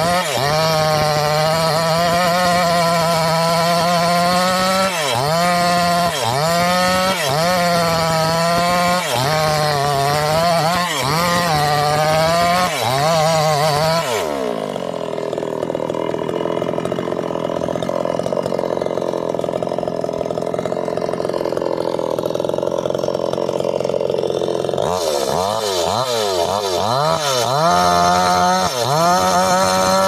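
Petrol chainsaw cutting into a tree stump, the engine pitch sagging and recovering about once a second as the chain bites into the wood. About halfway through it settles into a steadier, lower running while the saw is held off the wood, then revs and cuts again near the end.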